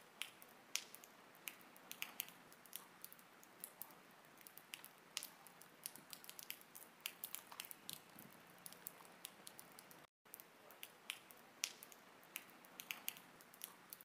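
Faint water dripping: many small irregular drips, several a second, over a low hiss, cutting out for a moment about ten seconds in.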